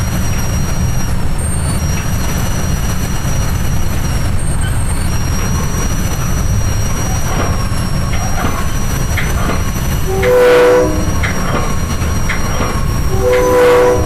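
Metra commuter train running along the track, heard from on board: a steady low rumble with occasional wheel clicks over the rails. The train's chime horn sounds two blasts, one about ten seconds in and a second starting near the end, warning of a road grade crossing ahead.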